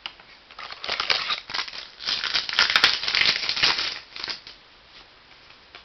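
Crinkly rustling and crackling of trading-card pack wrapping and cards being handled. It starts about half a second in, is densest in the middle and dies away after about four seconds.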